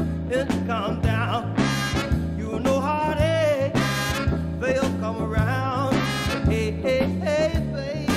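Background music: an upbeat swing-style song with a steady beat and a sung melody.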